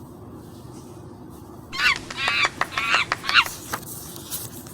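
Monkey chattering sound effect: a quick run of high, shrill calls falling in pitch, starting about two seconds in and lasting under two seconds.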